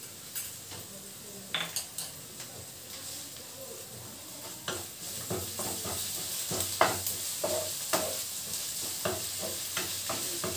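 Pounded onions frying and sizzling in a nonstick frying pan, stirred and scraped with a spatula. The stirring strokes come thicker and louder about halfway through.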